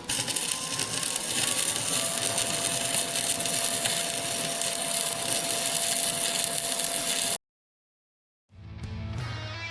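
Welding arc crackling steadily while the weld-out passes are run on the thick steel of a mulcher tooth backer. It cuts off abruptly about seven seconds in, and after a second of silence rock music fades in near the end.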